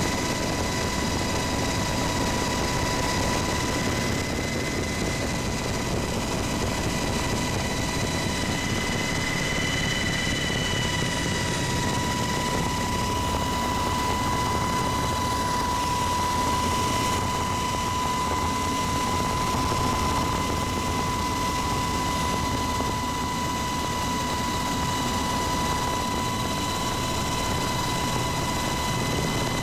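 UH-60 Black Hawk helicopter in flight, heard from inside the cabin: a steady engine and rotor noise with a constant high whine over it.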